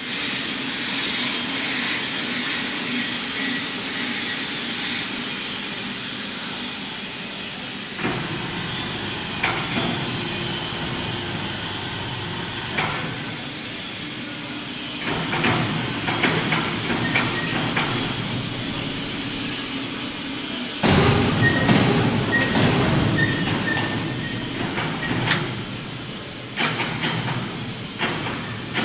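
Welding positioner tilting its table under pendant control, its geared drive running in steady mechanical noise with scattered metallic knocks. The noise grows louder for a few seconds about two-thirds of the way through.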